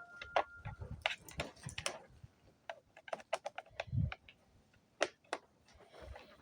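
Irregular small clicks and taps of hand tools and small parts being handled, in quick bursts, with a brief squeak near the start and one dull thump about four seconds in.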